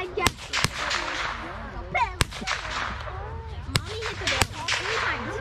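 Five sharp gunshot cracks at uneven intervals from target shooting.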